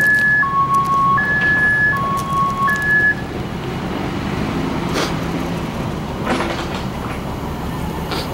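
Dump truck engine running steadily, with a two-tone warning alarm alternating high and low beeps that stops about three seconds in.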